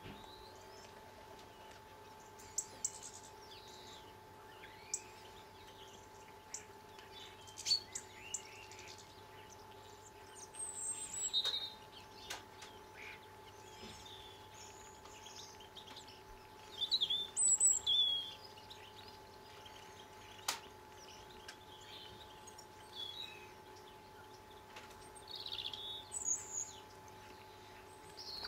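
Birds chirping and calling off and on, with short high chirps and falling whistles, the busiest flurries about ten, seventeen and twenty-six seconds in, over a faint steady hum.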